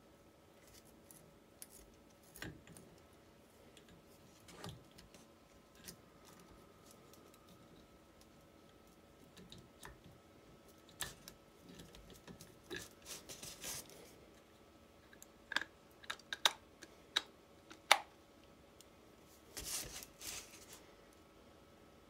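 Scattered light metallic clicks and taps as a starter solenoid, with its plunger and return spring, is fitted by hand onto a starter motor housing. The sharpest clicks come in a quick cluster about two-thirds of the way through, and a brief scraping sound follows near the end.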